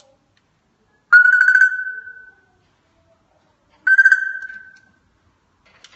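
African grey parrot making a sound effect: two matching trilled ringing tones about two and a half seconds apart, each fading away over about a second.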